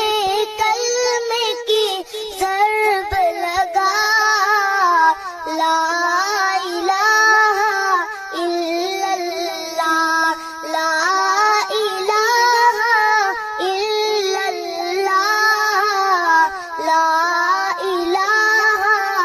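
A high solo voice singing a naat, an Urdu Islamic devotional song, with no instruments heard. It moves in long, ornamented phrases of wavering held notes, with a brief pause every few seconds.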